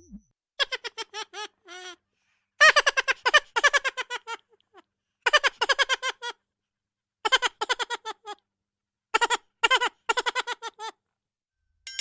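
High-pitched giggling laughter sound effect, coming in about five bursts of quick laugh syllables that fall in pitch, with short silences between them.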